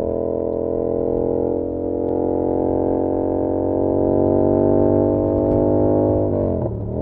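A 2022 Yamaha R7's parallel-twin engine, heard through its SC-Project CR-T exhaust from a recorder in the rider's backpack, pulling in gear with the revs climbing slowly. Near the end the revs dip sharply and then pick up again: an upshift.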